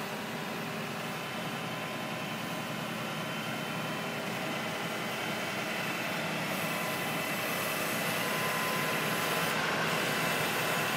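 Knuckle-boom grapple truck's engine running steadily to drive the crane's hydraulics, with a thin steady whine that grows a little louder over the last few seconds.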